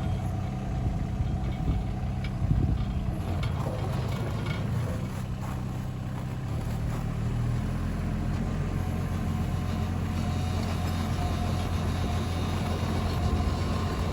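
Mini excavator's diesel engine running as the machine tracks up the ramps onto the trailer, its engine note shifting about six to seven seconds in, with a few faint knocks early on.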